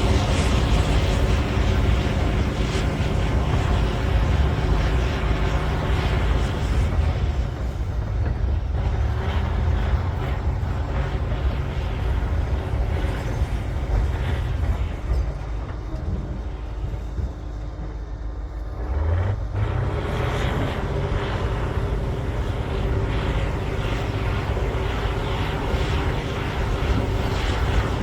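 Cat D9L bulldozer's diesel engine working hard with a deep, steady drone. It eases off somewhat past the middle, then revs back up with a rising pitch as it takes the load again.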